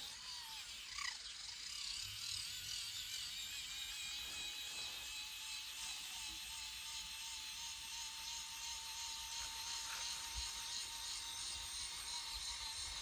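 Small electric motor of an RC toy tractor running with a steady high-pitched whine, switched on at the start and holding an even pitch.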